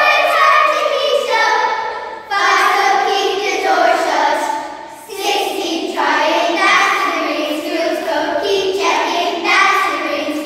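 A children's choir of girls singing together, phrase after phrase, with brief breaks between phrases about two and five seconds in.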